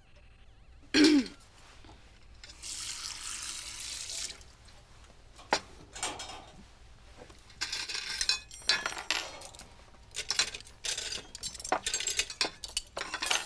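Kitchen washing-up: a short loud scrape about a second in, a tap running for about two seconds, then china plates, bowls and cutlery clinking and knocking as they are handled at the sink.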